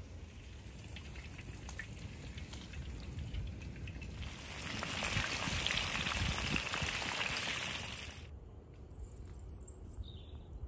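Chicken pieces sizzling and spitting in hot oil in a black steel pan over a wood fire, faint at first, loud for about four seconds in the middle, then cutting off suddenly. A bird chirps briefly near the end.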